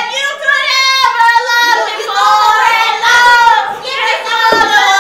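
A woman singing loudly into a microphone in high, long-held notes that waver in pitch.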